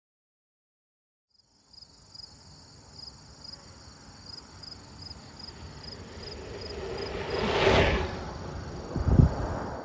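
A 1966 Schwinn Deluxe Stingray bicycle passing at over 40 mph: the rush of tyres and wind builds over several seconds, peaks near the end and falls away, followed by a low thump. Insects chirp in the background about twice a second.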